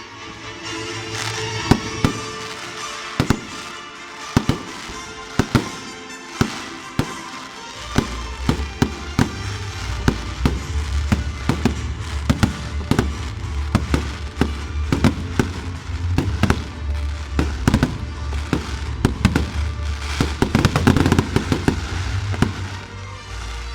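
Fireworks display: a string of sharp bangs, sparse at first and thickening into rapid crackling near the end, over loud show music whose heavy bass comes in about eight seconds in.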